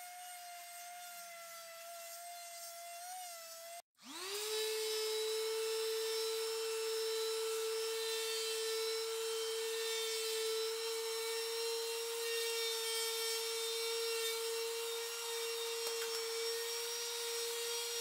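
Electric palm sander running steadily on the cut top of an oak log, with a steady whine. The sound breaks off suddenly about four seconds in, then the sander spins up quickly and runs on, a little louder and lower in pitch.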